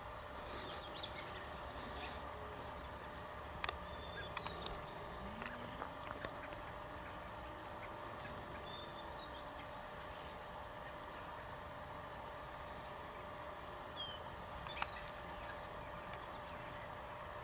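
Quiet outdoor ambience: scattered short, high bird chirps and a few sharp clicks over a steady hum.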